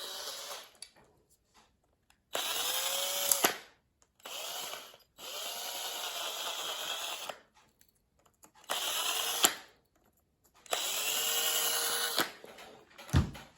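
Small power drill run in about six short bursts, each spinning up and winding down, opening up the hole in a pocket knife so an oversized bolt will fit through. A short low thud near the end.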